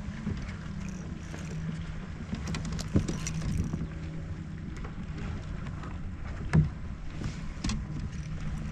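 Water lapping against a fishing kayak's hull in light wind, with a steady low hum underneath. A couple of short knocks come about three seconds in and again past six seconds.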